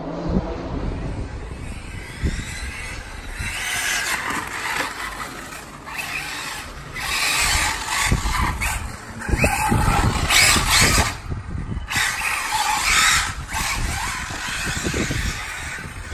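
Electric radio-controlled Arrma Typhon car driving on asphalt: its motor and drivetrain whine rises and falls with the throttle while the tyres hiss and scrabble on the road. The sound comes in repeated surges and is loudest a little past halfway.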